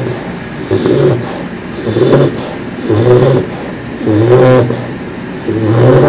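English Bulldog puppy snoring in deep sleep: about five loud snores, one roughly every second, each with a low buzzing pitch. The snoring is typical of the breed's short airway and chest build.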